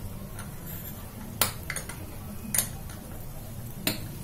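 Mustard seeds popping in hot ghee in a small tadka pan on a gas burner: a few sharp, separate pops about a second apart over a low steady hum. The crackling of the seeds is the sign that the tempering is ready.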